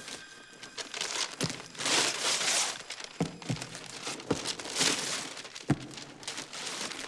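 Wrapping paper being torn and crumpled off a cardboard box in several rustling rips, with a few light knocks as the box is handled.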